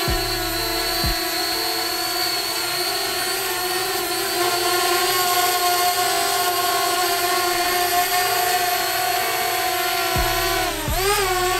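Parrot Bebop 1 quadcopter's propellers whining steadily in flight. About eleven seconds in, the pitch briefly dips and rises again as the motors change speed.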